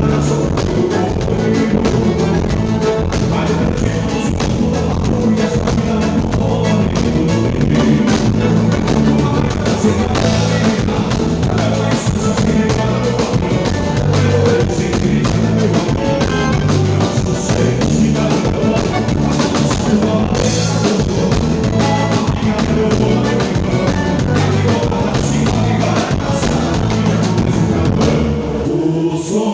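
A live band playing, with a drum kit keeping a steady beat under a repeating bass line; the music changes near the end.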